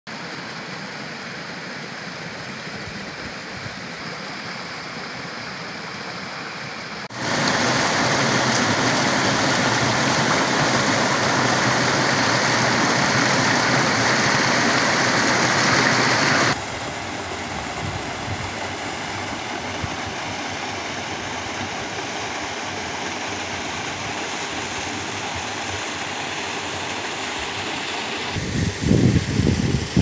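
Small mountain stream rushing and splashing over rocks, a steady hiss of water that gets much louder for about ten seconds in the middle. A few low rumbles come near the end.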